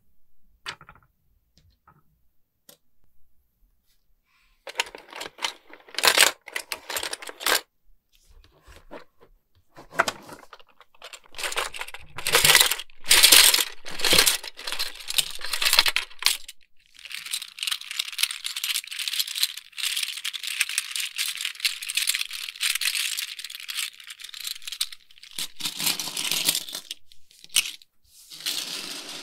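Small plastic fish pieces from a toy fishing game clicking and clattering as gloved hands pull them off the board and heap them together. A few scattered clicks at first give way to bursts of clatter, with a longer stretch of steady rattling a little past halfway.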